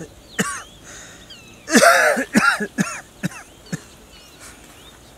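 A man coughing: a single cough about half a second in, then a harsh, loud cough about two seconds in followed by a quick run of shorter coughs.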